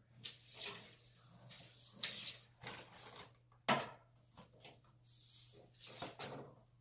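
Scattered clicks and knocks with bursts of rustling from handling a steel tape measure against a wooden panel and its cardboard packaging. One sharp knock, the loudest, comes just past the middle.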